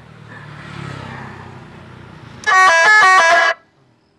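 Electronic telolet horn module sounding through a horn loudspeaker: a loud, quick run of stepped notes about two and a half seconds in, lasting about a second and cutting off suddenly. A low hum is heard before it.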